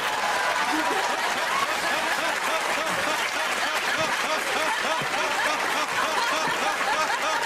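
Studio audience laughing: a steady wash of many voices together, with no let-up.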